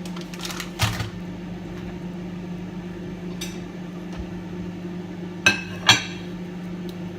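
Microwave oven running with a steady low hum. Kitchenware clinks about a second in and twice in quick succession near the end, the loudest sounds.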